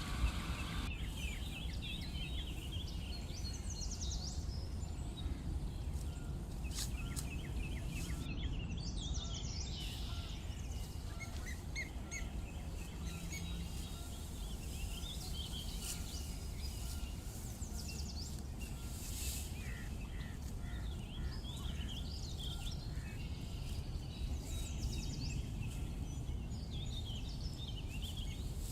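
Birds chirping and calling, many short calls scattered throughout, over a steady low rumble.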